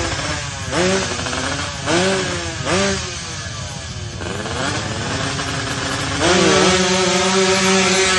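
Two-stroke Yamaha 125ZR motorcycle engine revved in four short blips, then held at high revs for about two seconds near the end as the bikes launch.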